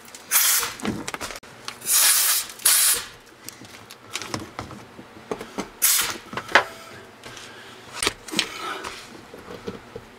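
Compressed-air blow gun blasting dirt out of the heads of Torx bolts: several short bursts of hissing air, the longest about a second. Clicks and knocks of tool handling come between the bursts.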